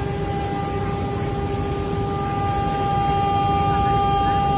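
CNC router spindle whining steadily at a fixed pitch while it carves a wooden column turning on the 4-axis rotary, over the rough noise of the cut. It gets slightly louder from about halfway.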